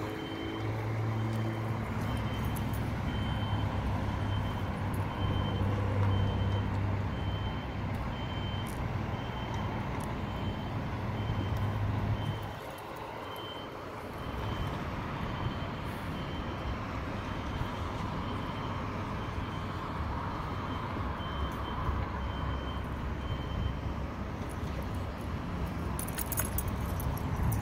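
Heavy construction vehicle running with a low diesel hum while its reversing alarm beeps at a steady, even pace. The hum drops away briefly about halfway through and the beeping stops a few seconds before the end.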